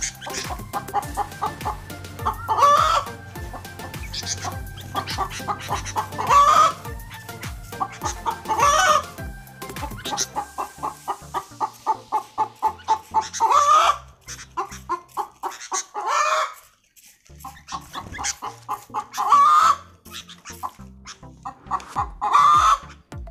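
Bird calls: loud calls every two seconds or so, with quick runs of short notes between them.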